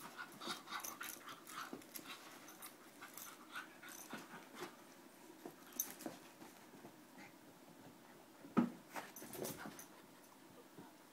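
Two puppies play-fighting: panting, small whimpers and the scuffle of paws and bodies on carpet, in many short irregular bursts, with one louder short sound about two thirds of the way through.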